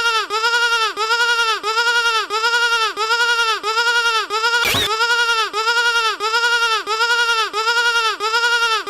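Sheep bleat sound effect, electronically edited into a fast loop of short identical bleats, about three a second. A brief noisy crackle breaks in a little under five seconds in.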